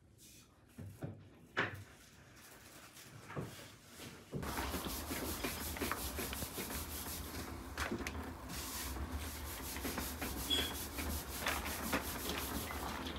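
Hands scooping and squeezing chopped meat samsa filling in a metal bowl and pressing it into dough: a dense, gritty rustling over a steady low hum, starting about four seconds in. Before that, a few scattered sharp clicks.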